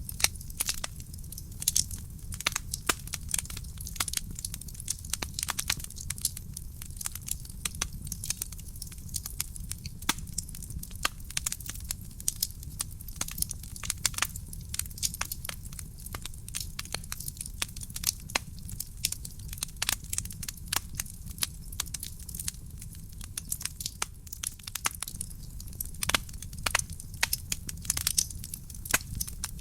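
Wood fire burning in a fireplace: dense, irregular crackling and popping, many sharp snaps a second, over a steady low rumble of the flames.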